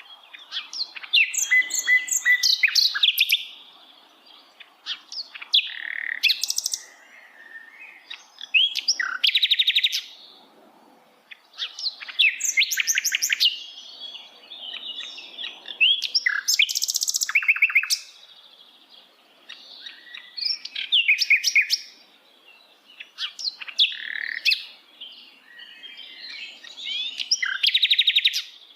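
A sikatan londo flycatcher singing: varied phrases of quick whistled notes and fast rattling trills, repeated every few seconds with short pauses between them.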